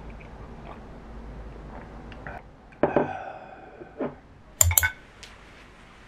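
Clear glass cup handled with a wooden spoon: one sharp clink that leaves the glass ringing for about a second, a lighter click, then a quick cluster of three or four loud knocks with a dull thud.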